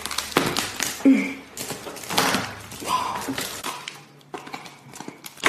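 Shell of a whole cooked lobster being cracked and pulled apart by hand: a run of sharp cracks and crunches, loudest about a second and two seconds in.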